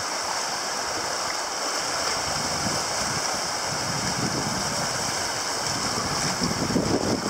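Small waves breaking and washing up the beach in the shallows, a steady rushing hiss that swells a little in the second half.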